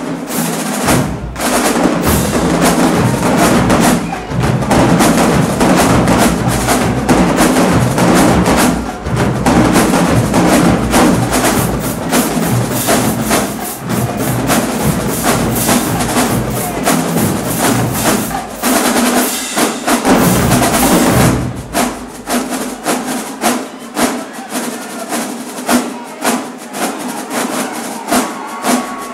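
Marching-band drumline of bass drums and crash cymbals playing a loud, driving cadence. About twenty seconds in the low drum sound drops away, leaving lighter, evenly spaced strikes.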